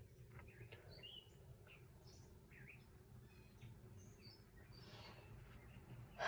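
Near silence with faint, short, scattered bird chirps.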